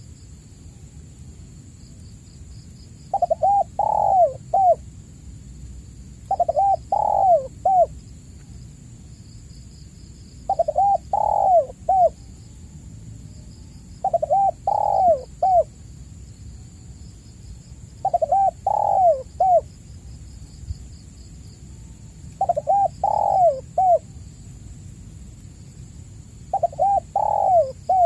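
Spotted dove (tekukur) cooing: seven phrases of three or four notes each, about one every four seconds. A steady high-pitched tone and faint rapid chirping run in the background.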